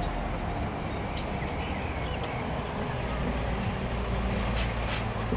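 Bus engine running steadily with a low rumble, heard with street traffic noise and a few faint clicks.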